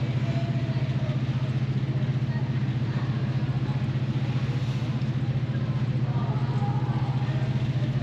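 A ferry's engines running steadily, heard on board as a low hum with a fast, even pulse under a wash of noise. Faint passenger voices come through now and then.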